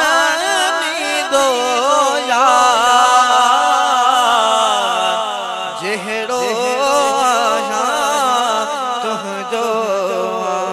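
Male voice singing a Sindhi naat in long, wavering, ornamented phrases over a steady low hum.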